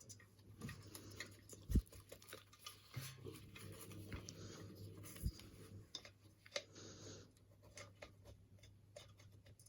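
Faint handling sounds of a liner being fitted into a steel Brodie helmet with a brass screw and nut: scattered small clicks and light rustling, with two sharper knocks about two and five seconds in.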